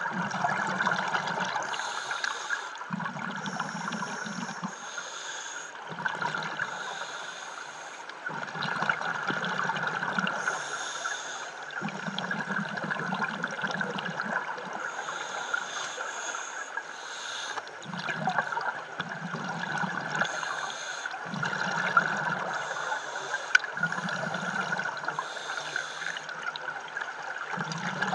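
Scuba regulator breathing underwater: a hiss on each inhale alternating with a rumbling burst of exhaled bubbles, one breath every two to three seconds.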